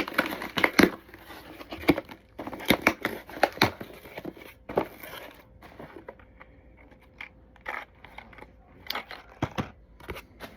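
Cardboard box and packaging of a wireless microphone set being handled and opened: irregular crinkling, tearing and sharp clicks, sparser toward the middle.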